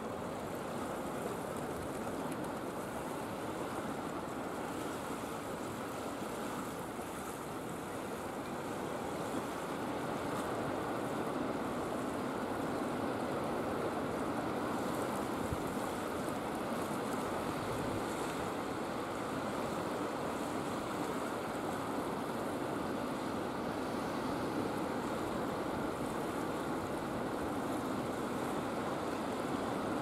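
Steady wash of waves and rippling water at the river mouth, even and unbroken, with no distinct bird calls.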